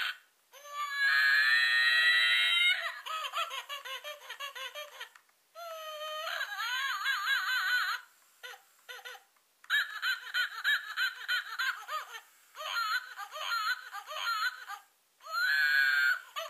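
Pawpalz talking baby-monkey plush toy playing its recorded baby-monkey voice: high-pitched giggling and squealing, with a long squeal about a second in and a run of short choppy chatter through the second half. The toy's reactions change as its banana is taken away from its mouth.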